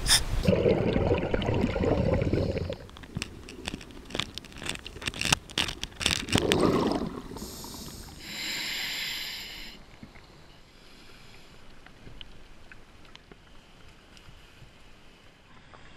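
Scuba diver breathing through a regulator underwater: a long exhalation as a rush of bubbles, a scatter of sharp clicks and a second short burst of bubbles, then a hissing inhalation through the demand valve about eight seconds in. Only faint ticks follow.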